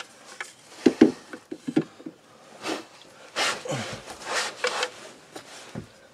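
Plastic drain pipe parts being handled under a shower pan: a few sharp knocks about a second in, then scuffing and rubbing.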